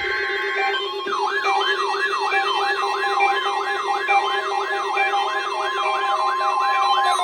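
Weather-radio test signal: the warbling two-tone SAME data burst ends just under a second in. Electronic weather alert receiver alarms then sound together: a siren tone sweeping upward about two and a half times a second over layered steady and beeping tones, set off by the Required Weekly Test.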